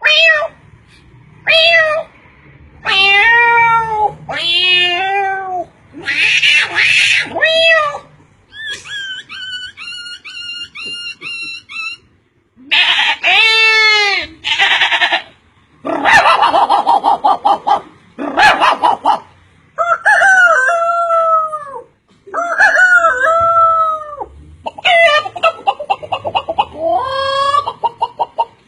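A person imitating a string of different animal calls with the voice: a run of separate pitched calls, some rising and falling, with a quieter fast pulsing call from about nine to twelve seconds in.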